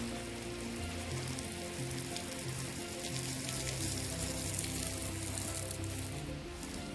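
Water spraying from a garden hose onto plants and soil: a steady hiss.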